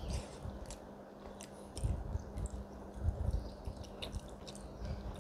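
A person chewing a mouthful of baked tuna mac and cheese, with soft low chewing thumps and a few faint clicks, over a faint steady hum.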